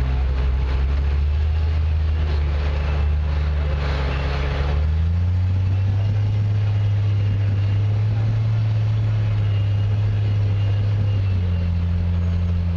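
Engine of a modified four-wheel-drive rock crawler working under load as it climbs a rock ledge. It runs at a steady low speed, is given more throttle about five seconds in and holds the higher revs, then eases back slightly near the end.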